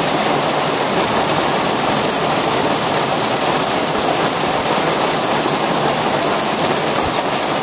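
Heavy hail falling in a dense, steady downpour: an even, unbroken rush of noise with no let-up.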